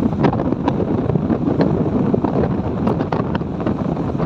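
Loud wind buffeting the microphone of a moving motorcycle, with the bike's engine running underneath.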